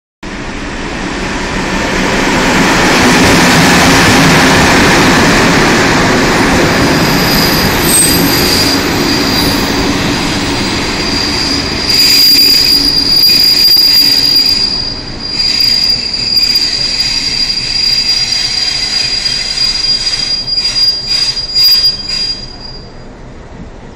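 A passenger train running past and braking to a stop, its noise loudest in the first few seconds. A steady high-pitched brake squeal sets in and holds as it slows, with a run of sharp clanks near the end as it halts.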